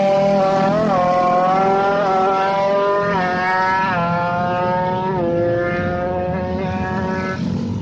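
Two-stroke single-cylinder engine of a drag-tuned Kawasaki Ninja 155cc, revved and held high through its expansion-chamber exhaust, with the pitch dipping and climbing back about once a second as the throttle is worked. The owner hears a strange clattering from the exhaust as the power comes up.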